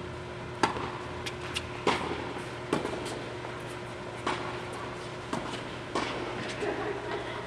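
Tennis balls struck by rackets and bouncing on a hard indoor court during a doubles point. It opens with the serve, the loudest hit, followed by a string of sharp hits about a second apart over a steady background hum.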